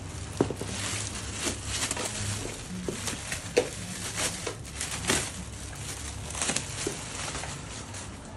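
Clear plastic packing film crinkling and rustling as it is torn and pulled off an electric scooter, with a couple of sharp clicks, one about half a second in and one around three and a half seconds in.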